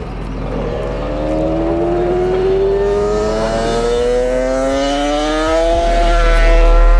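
Two-stroke Honda 500 cc Grand Prix racing motorcycle accelerating in one long pull, its engine note rising steadily in pitch and growing louder.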